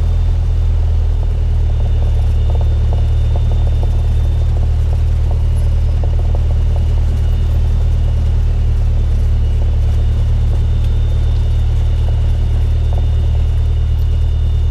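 Cessna 172's engine and propeller running with a steady low drone that shifts slightly in pitch about a second in, over a faint steady high whine.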